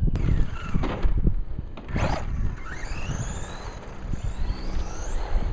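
Brushless electric motor of an RC truck (Arrma motor on a DESC210 system) whining, its pitch rising and falling with the throttle. Thumps and a rough rumble come from the truck bouncing and its tires on the ground, loudest in the first two seconds.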